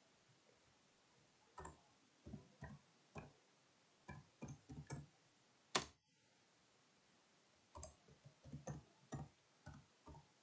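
Faint keystrokes on a computer keyboard as a word is typed: irregular soft clicks, with one slightly louder click about halfway through, a pause of about two seconds, then more typing.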